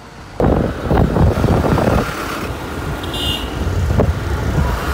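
Wind buffeting the microphone and road noise from a moving scooter, a loud irregular rumble that starts abruptly half a second in. A brief high-pitched beep sounds a little past three seconds.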